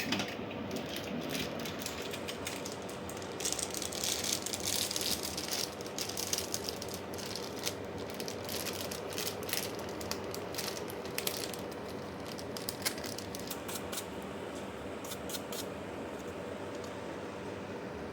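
Small clicks and light rattling of parts and tools being handled in a repair, coming thick for several seconds and thinning out near the end, over a steady background hiss.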